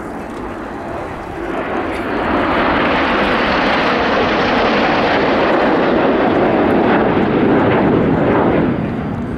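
BAE Hawk T1 jets passing by. Their jet engine noise is a loud rushing that swells about two seconds in, holds, and falls away near the end.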